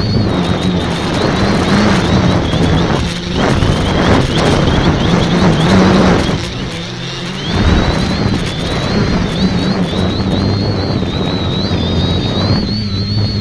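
Multirotor's electric motors and propellers whirring, heard from a camera on the craft itself, with a thin high whine that wanders up and down with the throttle. Wind buffets the microphone.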